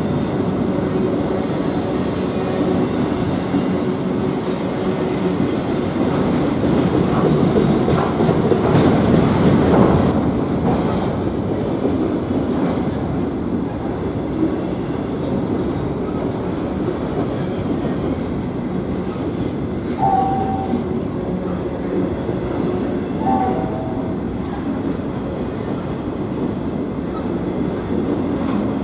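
Freight train of autorack cars rolling past at close range: steady noise of steel wheels running on the rails, swelling about a third of the way in. Two brief squeaks come about two-thirds of the way through.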